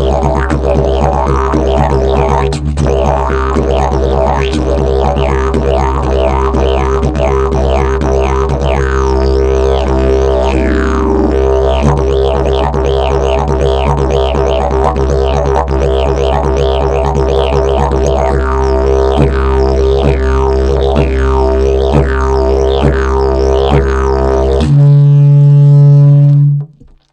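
Fibreglass and prickly pear fibre double-slide didgeridoo played: a continuous low drone shaped by a rhythmic pattern of rising and falling sweeps. About 25 seconds in it jumps to a louder, higher held note, then stops abruptly.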